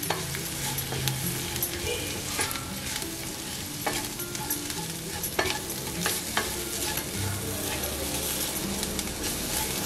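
Onion-and-spice masala frying in oil in a stainless steel pan, sizzling steadily while a wooden spatula stirs and scrapes through it, with a few sharp knocks of the spatula against the pan.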